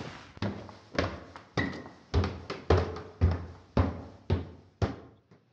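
Footsteps sound effect: about nine even, thudding steps at roughly two a second, a man walking away.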